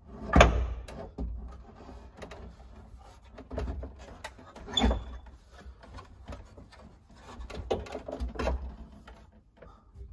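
Irregular knocks and clunks of a Jeep Cherokee XJ's dash carrier being worked into place by hand, with a brief squeak about five seconds in.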